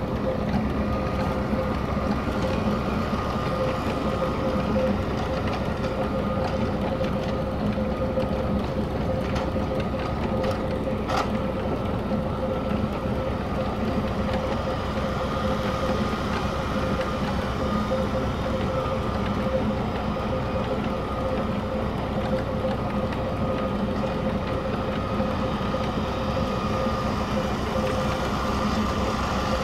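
Holder C9700H compact tractor running steadily under load while its front snowblower throws snow, a constant engine drone with a steady whine over it. A single brief click about eleven seconds in.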